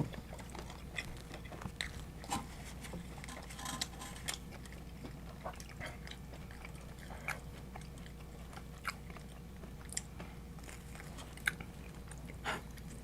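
Close-miked eating sounds: chewing and biting into pizza, with scattered short, irregular mouth clicks and smacks.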